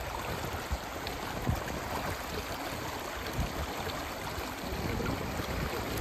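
Shallow river water rushing and rippling over stones and pebbles in a steady rush, with light wind buffeting the microphone.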